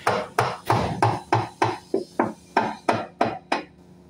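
Rhythmic knocking of a hand tool on a hoisted engine block, about three strikes a second with a short ring after each. The strikes grow weaker and stop about three and a half seconds in.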